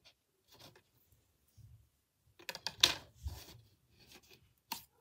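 Model railway track being slid and pressed into place on a board by hand: scattered light clicks and rattles of the rails and sleepers. The sharpest click comes about three seconds in, and another just before the end.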